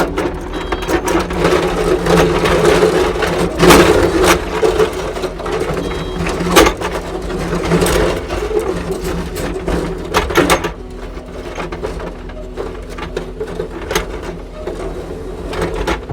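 Kubota SSV65 skid steer's diesel engine running under load, with repeated sharp knocks and clatter. About ten seconds in it drops to a quieter, steadier run.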